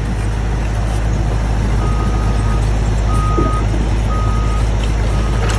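A heavy vehicle's engine running with a steady low drone; about two seconds in, its reversing alarm starts beeping, four single-pitched beeps roughly a second apart.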